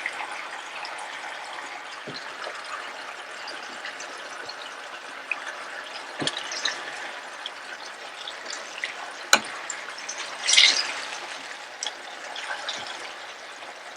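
Chicken pieces simmering in the watery juices they have released in a pan, a steady crackling sizzle. A few sharp clinks of a utensil against the pan come in the middle, the loudest a brief clatter a little past halfway, as the pieces are turned over.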